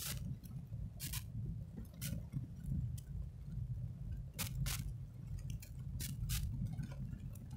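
Low, steady road and engine rumble heard from inside a moving car, with a few sharp clicks or ticks scattered through it.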